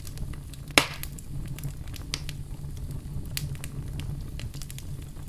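Wood campfire in a stone fire pit crackling, with scattered sharp pops; the loudest pop comes a little under a second in. A low steady hum runs underneath.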